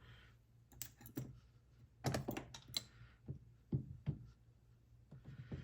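Light clicks and taps of small lock parts and tools being handled on a work surface, scattered through with a cluster about two seconds in.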